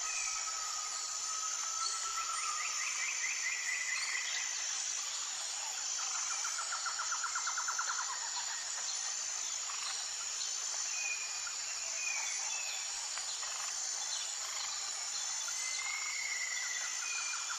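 Insects droning steadily at a high pitch with a faint pulsing rhythm, while birds call over it: a rapid trill about two seconds in, another lower rapid trill around six to eight seconds, short whistled notes near the middle and near the end, and a trill starting at the very end.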